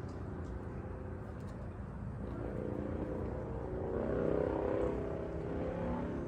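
Engine passing by over a steady low rumble, growing louder from about two seconds in and fading near the end.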